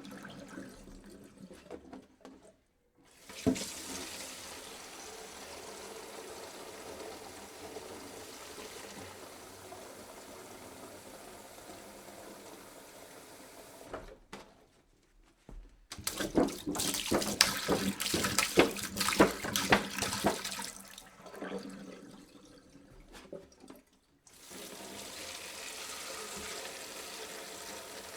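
Water poured into a jug in a steady stream, stopping briefly about three seconds in and again near the middle. This is followed by a louder, splashier pour that eases off before the steady stream returns near the end.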